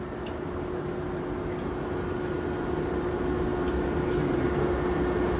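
Monarch engine lathe running: a steady machine hum with a constant whine, growing gradually louder.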